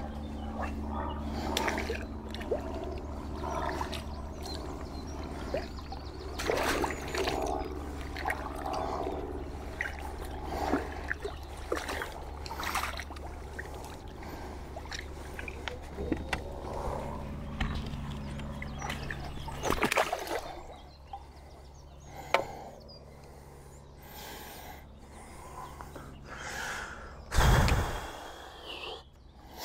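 Small splashes on the water and handling of fishing tackle, with scattered clicks and rustles over a steady low hum. A loud low thump near the end.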